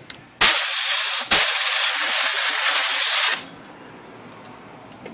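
Compressed-air blow gun blasting a loud hiss of air: a short burst about half a second in, then after a brief break a longer blast of about two seconds that cuts off suddenly.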